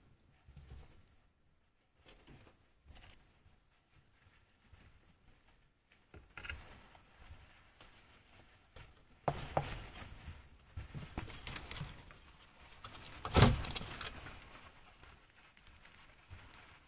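Degus rustling and crinkling paper towel and hay as they drag nesting material about, in irregular scrabbling bursts. The rustles are sparse at first, then grow denser, with the loudest crackle about thirteen seconds in.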